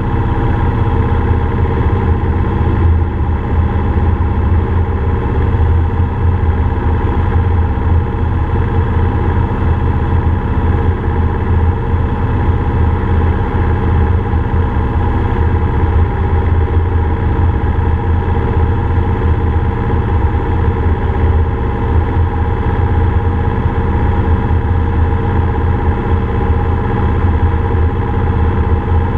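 Cessna F150L's four-cylinder Continental O-200 engine and propeller droning steadily in flight, heard from inside the cabin.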